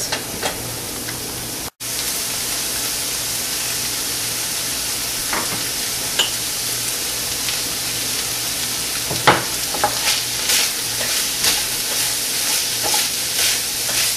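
Ground veal and onion sizzling steadily in a stainless steel frying pan, with a wooden spoon scraping and stirring through it in repeated strokes near the end. The sound cuts out for an instant about two seconds in.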